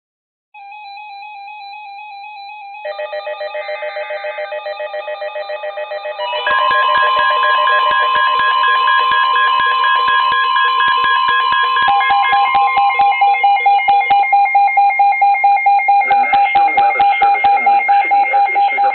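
Several weather radios sounding their alert alarms for a flash flood warning. One starts with steady beeping tones, a second joins about 3 s in and more about 6 s in, the later ones pulsing rapidly. Near the end a radio's voice begins reading the warning under the alarms.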